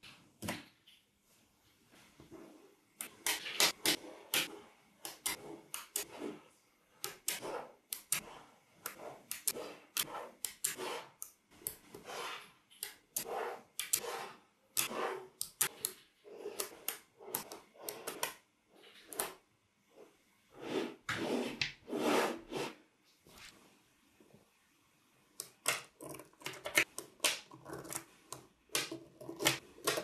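Small neodymium magnetic balls clicking and clattering as strips of them are snapped together and pressed onto a flat magnetic-ball sheet. The clicks come in irregular clusters, with a few short pauses.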